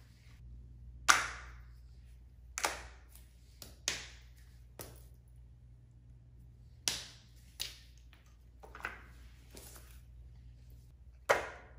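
Fidget toys being put down and moved about on a foam board by hand: about nine separate sharp taps and slaps, a second or so apart, the loudest about a second in and near the end.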